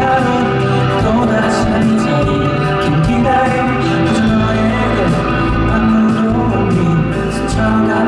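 Live band playing a pop song, with singing.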